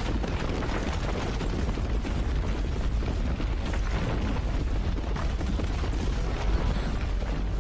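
Action-film sound effects: a continuous deep rumble with dense crackling and small impacts running through it, like a magical blast or upheaval.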